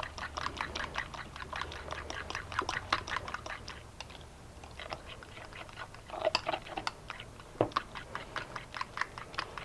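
A spoon stirring thick yogurt sauce in a ceramic bowl, a quick run of light clicks and wet scrapes against the bowl, with a short pause about four seconds in before the stirring picks up again.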